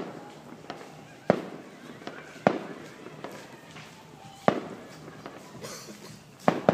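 Fireworks going off: single loud bangs about every one to two seconds, each trailing off in an echo, with lighter cracks between them and a quick double bang near the end.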